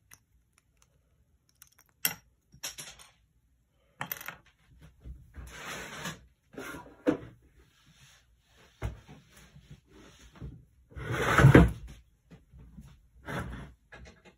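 Plastic LEGO pieces being handled, clicked together and set down on a wooden table, giving a few sharp clicks and knocks with light rustling between them. Near the end comes a louder rustle of handling noise lasting about a second.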